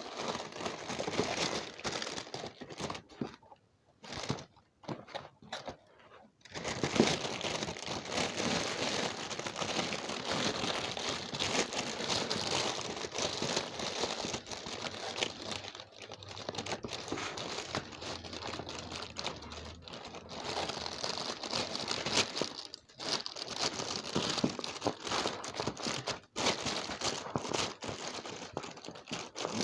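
Crinkling and crumpling of handled material, in short spells with pauses for the first six seconds, then nearly continuous.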